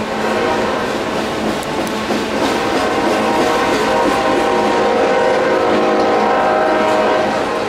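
A double-stack intermodal train's loaded well cars rolling slowly past, a steady rumble of wheels on rail. Several steady high tones run over the rumble throughout.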